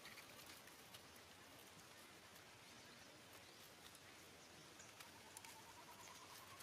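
Near silence: faint background hiss with a few soft ticks, and a faint high repeated tone near the end.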